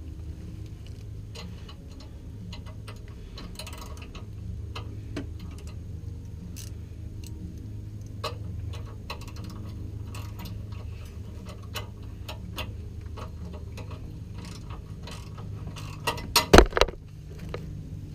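Ratchet wrench clicking in short runs as a small bolt is worked loose, over a steady low hum. A few loud knocks come near the end.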